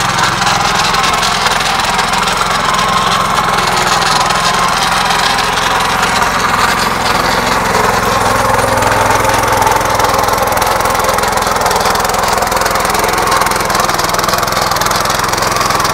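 Walk-behind power weeder (rotary tiller) engine running steadily while its rotating tines dig through soil.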